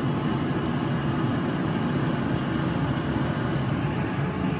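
Air fryer running while it preheats: its fan gives a steady low noise with no change.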